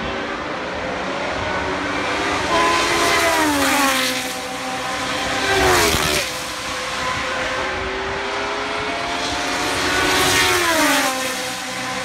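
Historic Formula 1 cars with Cosworth DFV 3.0-litre V8 engines passing at speed, three going by in turn, each engine note falling in pitch as it passes. The loudest pass comes about halfway through.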